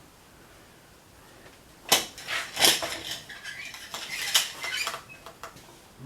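Homemade lever-operated pipe crimper squeezing a metal pipe in its jaws: a sharp metal clank about two seconds in, then about three seconds of clinking and scraping metal that stops near the end.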